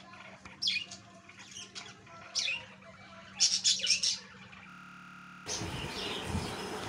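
Small birds chirping in short, sharp calls, with a quick run of chirps about three and a half seconds in. After a brief dropout there is a steady hiss and a low knock from the phone being handled.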